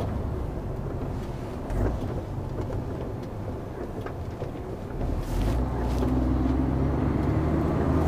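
Lorry's diesel engine and tyre noise heard inside the cab, running steadily as the truck takes a roundabout, with the engine growing louder about five seconds in as it pulls away, and a single brief knock near the start.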